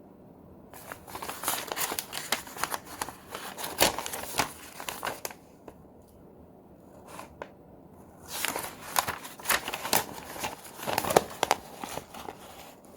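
Paper and plastic packaging crinkling and rustling as it is handled and unwrapped, in two spells of a few seconds each with a pause between.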